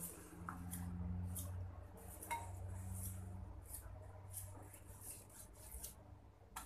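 Scattered light clinks, taps and scrapes of kitchen utensils while chicken is cut with a cleaver and seasoning is worked in a clay mortar, over a steady low hum.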